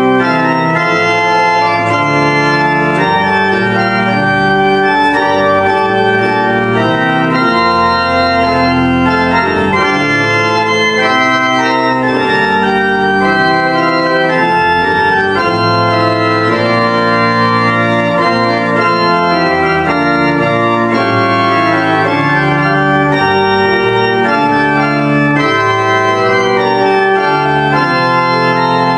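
Church pipe organ playing a slow piece of sustained chords that change about every second, at a steady, full volume.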